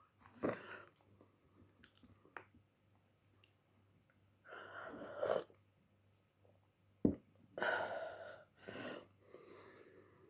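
Close-up mukbang mouth sounds from a person eating and drinking tea: a few short, noisy sips, breaths and chewing sounds, with a sharp click about seven seconds in.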